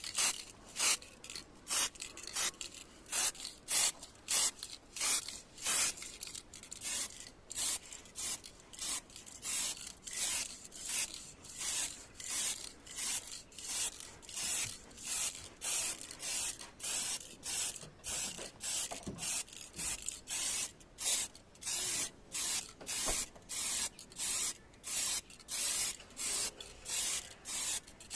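Sandpaper worked by hand over car bodywork in quick back-and-forth strokes, about two a second, a steady scratchy rasp.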